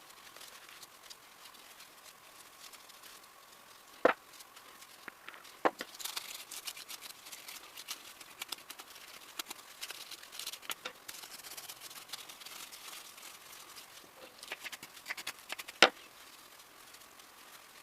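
Hands working on the parts of a Ramset 122MD powder-actuated tool during teardown. There are three sharp knocks, about four seconds in, just before six seconds and near the end. Between them comes a long stretch of small clicks and scraping.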